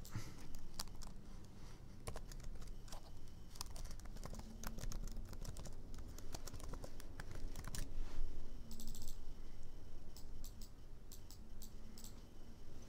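Typing on a computer keyboard: a run of quick, irregular keystrokes with short pauses between bursts.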